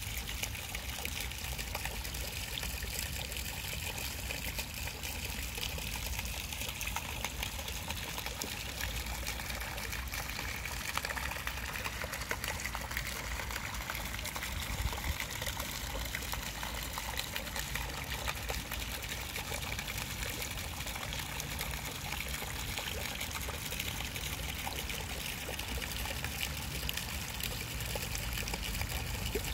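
A fountain's thin water jet splashing steadily into the pool.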